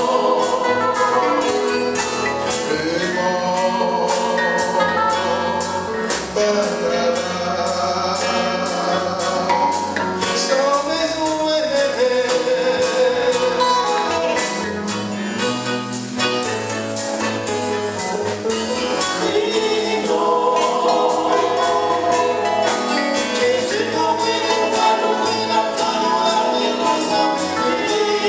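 Live gospel band: several singers in harmony over electric guitars, bass, drums and keyboard, with a steady beat.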